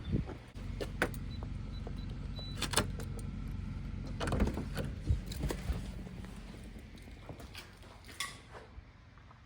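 Scattered sharp clicks and knocks over a low steady hum that fades out about eight seconds in.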